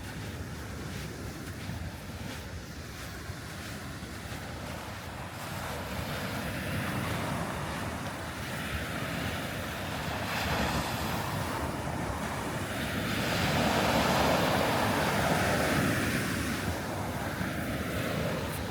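Sea waves breaking on a sandy beach, the surf swelling and washing in louder about two-thirds of the way through, with wind on the microphone.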